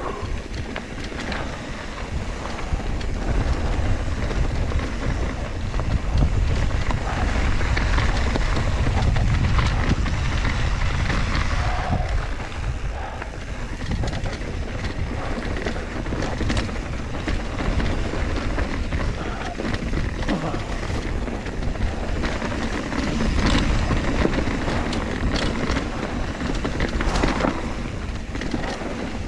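Wind rushing over the camera microphone and tyre rumble from a mountain bike riding fast down dirt singletrack, with scattered knocks and rattles from the bike over bumps.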